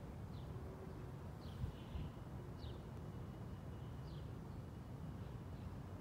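A small bird chirping: short, falling chirps about once a second, over a low, steady outdoor rumble of wind and distant traffic, with a brief thump about a second and a half in.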